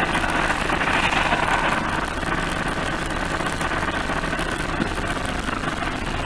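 Steady vehicle engine and road noise, with no crash or sudden impact.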